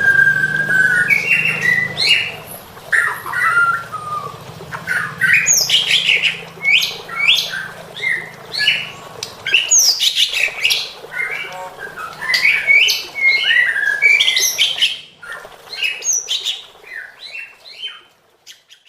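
White-rumped shama (murai batu) singing without pause in a long, varied string of whistled phrases, quick trills and harsh notes, a song rich in imitated calls of other birds. It eases off and turns sparser in the last few seconds.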